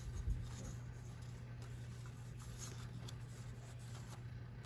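Faint rustling of old paper recipe cards being handled and set into a bowl, with a soft tap about a third of a second in, over a steady low hum.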